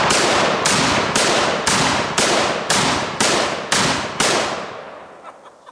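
Rapid fire from a Smith & Wesson X-frame magnum revolver: about nine heavy shots, roughly two a second, each with a ringing report. The shots stop a little over four seconds in and the echo dies away over the next second.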